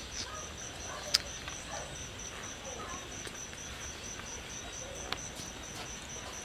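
Insect chirping in a steady high-pitched pulse, about four to five chirps a second. Two sharp clicks stand out, the louder about a second in and another about five seconds in.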